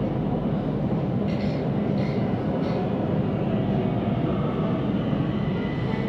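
Siemens Inspiro metro train running, a steady rumble of wheels on rails heard from inside the carriage, with three brief higher-pitched noises about one and a half to two and a half seconds in.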